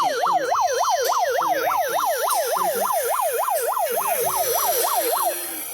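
Police siren in a fast yelp, a rapid rising-and-falling wail about four cycles a second, that stops near the end.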